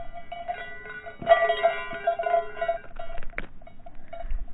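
Small metal falconry bell on a Harris's hawk jingling as the hawk flies in and lands on a leather falconry glove. There is a sharp knock about a second in as it strikes the glove, and another knock near the end.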